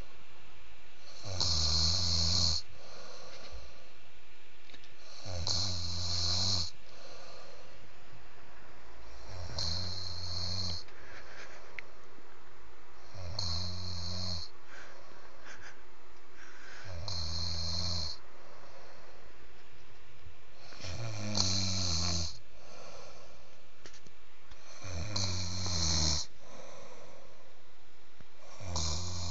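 A sleeping man snoring heavily: a deep snore about every four seconds, eight in all, each lasting about a second.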